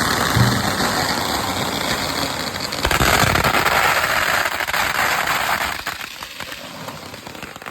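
Fireworks going off in a dense run of rapid crackling pops. The crackle is loud for about five seconds, then thins and dies away near the end.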